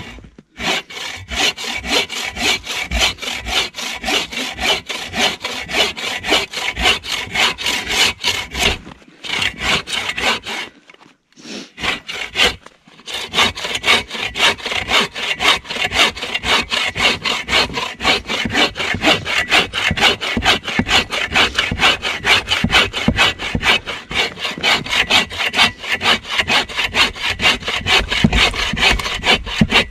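Bow saw crosscutting a felled balsam fir log by hand, in fast steady back-and-forth strokes of the blade through the wood. It stops briefly about nine seconds in and again from about eleven to thirteen seconds in, then resumes at the same pace.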